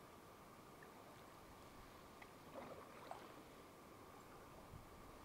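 Near silence on a calm lake: a faint steady hiss, with two soft splashes of a canoe paddle dipping into the water about two and a half and three seconds in.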